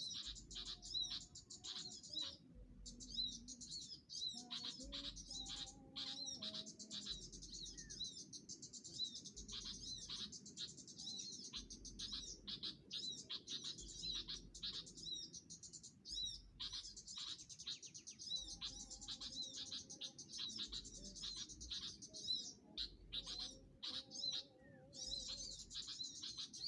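Small songbirds chirping in rapid, dense runs of high-pitched calls, over faint background music with a slow low beat.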